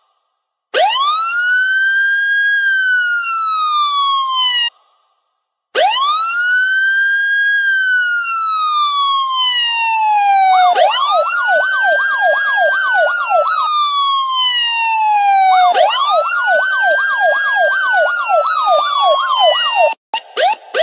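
Two girls' voices imitating a police siren: one holds slow wails that rise quickly and then fall away over several seconds, with a short break after the first. From about ten seconds in the other adds a fast up-and-down yelp, about three swoops a second, over the wail.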